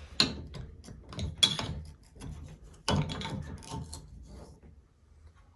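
Shower valve parts being handled: a quick run of small clicks and knocks of plastic and metal pieces, thinning out near the end.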